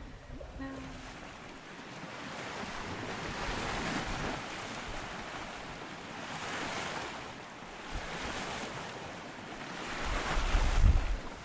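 Sea water rushing and hissing past the hull and bow wave of a small sailboat under sail, swelling and easing as it punches through the waves every few seconds. Near the end, wind buffets the microphone in a low rumble, the loudest moment.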